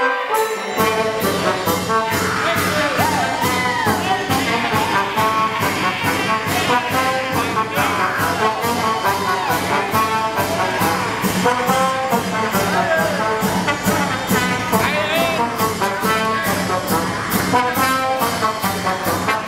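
Live chamber-ensemble music led by brass (trumpet and trombone), over a steady beat of about two to three strokes a second.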